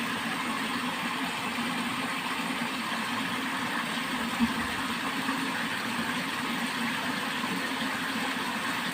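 Water flowing steadily along a channel: an even rushing with a low rumble under it.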